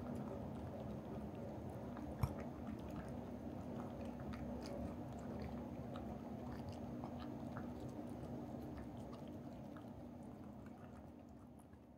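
Minuet cat chewing and biting food from a bowl: steady small wet clicks and crunches, with one sharper click about two seconds in, fading out near the end.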